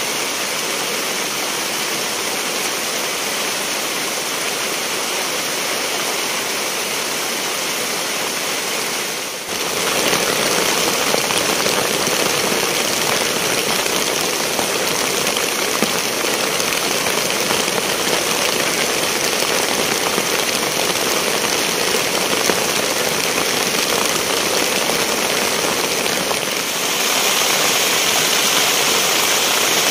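Heavy rain falling steadily, a dense even hiss. It steps up abruptly in loudness about a third of the way in and again near the end.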